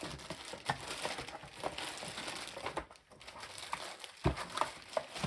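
Packaging crinkling and rustling as it is handled, with small clicks and a soft knock about four seconds in.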